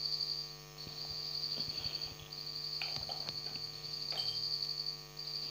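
Steady background hum with a high-pitched buzzing tone that breaks off briefly several times. Over it come a few faint clicks and knocks as the dropper and plastic beaker are set down on the table.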